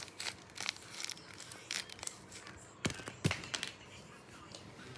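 A handmade paper squishy shaped like an ice-cream bar being squeezed and handled: its tape-covered paper crinkles and crackles in scattered short bursts, the loudest about three seconds in.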